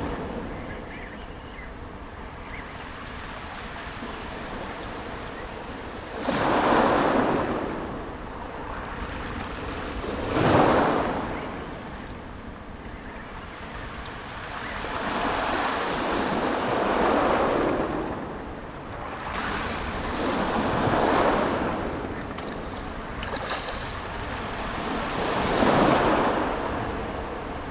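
Waves breaking on a shingle beach and washing over the stones. The sound swells and fades every four to five seconds.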